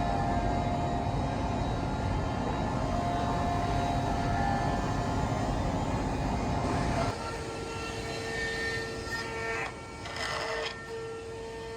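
CNC router running: a loud, steady spindle-and-cutting noise with a held whine. About seven seconds in it drops suddenly to a quieter, steady single-tone spindle whine, and a brief burst of cutting noise comes near the end.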